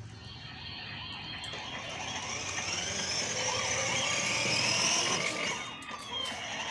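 Battery-powered ride-on toy car driving over paving stones: its hard plastic wheels rolling and rattling with a small electric motor running. It grows louder toward the middle and drops away near the end.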